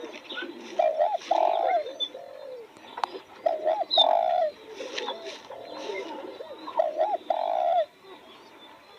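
Spotted dove cooing: three calls about three seconds apart, each two quick notes followed by a longer held note. Faint chirps of smaller birds and a single click can be heard between the calls.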